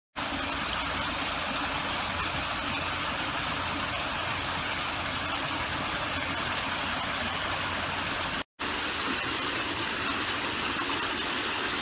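Small stream cascading over rocks, a steady rush of water with a brief gap about eight and a half seconds in.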